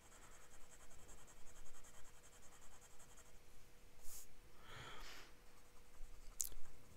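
Faint scratching of a fountain pen's fine steel nib moving in quick back-and-forth strokes on paper, filling in a patch of ink. It is mostly in the first three seconds, with a few short scratches later.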